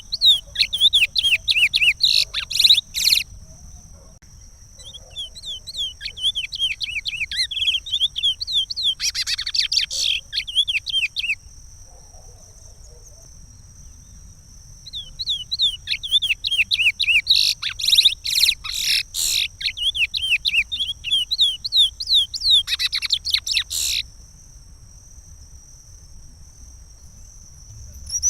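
Chestnut-bellied seed-finch (curió) singing its Pará regional song: rapid runs of quick whistled notes in three phrases, each separated by a pause of a few seconds. A steady high thin tone runs underneath.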